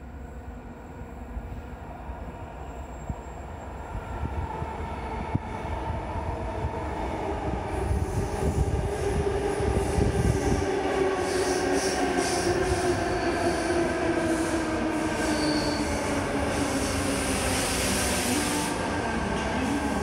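Double-deck electric suburban train arriving at an underground platform: a rumble that builds as it comes out of the tunnel, then runs past loud. In the second half, a whine falls in pitch as the train slows, with a high wheel-and-brake hiss that cuts off near the end.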